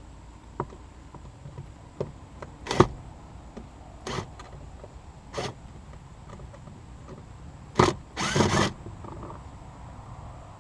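Hands working on plastic interior parts around the glovebox and cabin air filter housing: scattered clicks and knocks, the loudest a sharp knock about three seconds in, with a short sliding scrape near the end.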